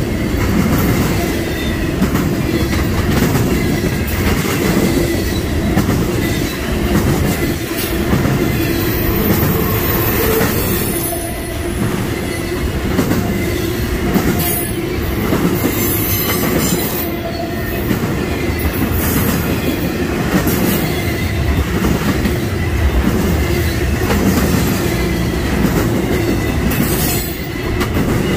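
Norfolk Southern freight train rolling past close by, its cars' wheels running steadily over the rails with a rhythmic clickety-clack. Brief high-pitched wheel squeals come through several times.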